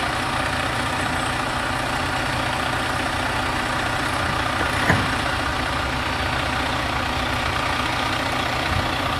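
Fire engine's diesel engine idling steadily, with a single short knock about five seconds in.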